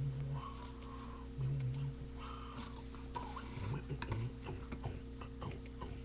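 Irregular light clicks and taps over a steady low electrical hum, with a short low vocal sound near the start and again about a second and a half in.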